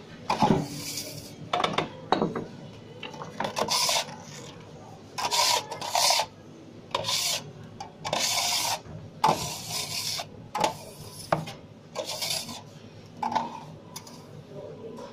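Metal-bladed bench scraper scraped hard across a floured pizza worktop in about a dozen quick, irregular rasping strokes.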